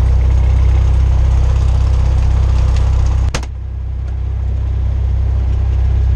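Cessna 172R's four-cylinder Lycoming engine running steadily, heard from inside the cockpit. A single sharp click comes a little over three seconds in, after which the sound dips and then builds back up.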